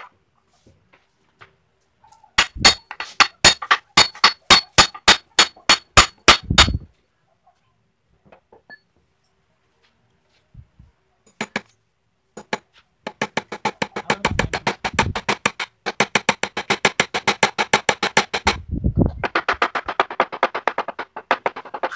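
Hammer blows on the wooden sofa frame: a run of sharp knocks about three a second, then, after a pause, a faster run of about seven a second that ends in a denser clatter.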